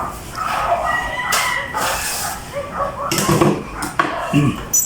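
Farm animal calls: a dog yipping and whimpering, and a rooster crowing, mixed with sharp clicks.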